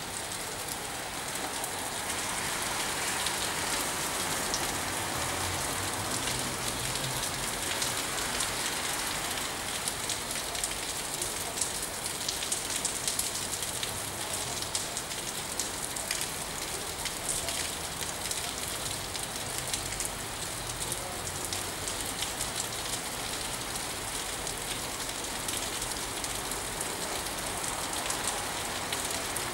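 Steady rain falling on a pine tree: an even hiss made of many fine drop ticks, with no change in strength.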